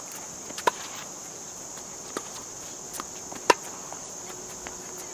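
Tennis rally: two loud, sharp racquet-on-ball strikes about three seconds apart, with fainter hits or bounces between them. A steady high drone of insects runs underneath.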